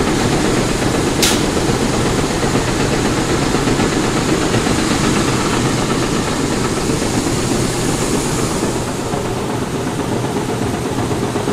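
Grain-handling machinery running steadily, loading soybeans out of a bin, with one sharp click about a second in.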